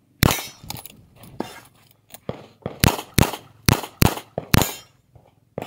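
Revolver shots fired two-handed in a practical shooting stage: one shot about a quarter second in, a few fainter knocks, then a string of five shots about half a second apart.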